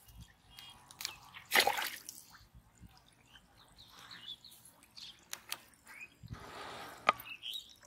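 Water splashing and dripping in short bursts, the loudest about one and a half seconds in, with a longer splashing patch and a sharp click near the end. Faint bird chirps come in between.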